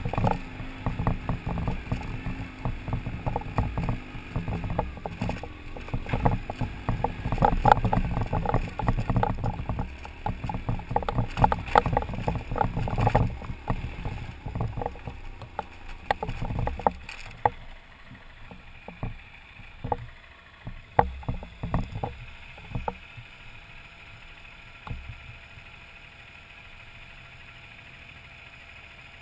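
Wind rush and rattling knocks picked up by a helmet camera on an adventure motorcycle riding over a rocky dirt trail. About 17 seconds in the bike slows and stops, leaving a few scattered knocks and then a steady low hum.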